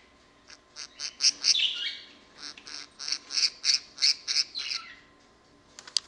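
Budgerigar chirping: a quick run of short, high chirps, several a second, broken by a couple of warbling glides, then stopping about five seconds in. A single sharp click near the end.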